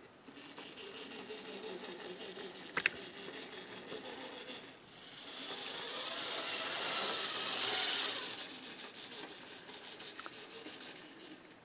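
Small HO-scale Bachmann model train running on the track, its little motor whirring and the wheels rolling on the rails, with a single sharp click about three seconds in. The whirring grows louder and brighter for a few seconds past the middle, then eases.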